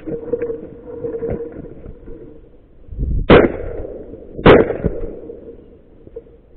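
Two shotgun blasts about a second apart, each with a short echo trailing off.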